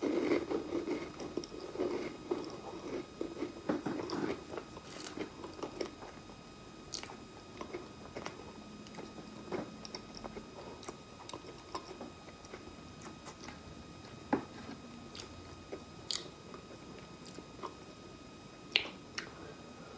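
Close-miked chewing of a cracker spread with guava jam. The crunching is dense for the first few seconds, then thins out to occasional soft mouth clicks.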